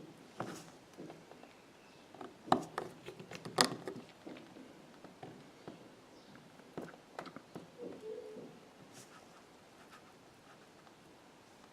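Light clicks and taps of small repair tools on an iPhone 6's internal parts and tiny screws during reassembly, irregular, with two sharper clicks about two and a half and three and a half seconds in.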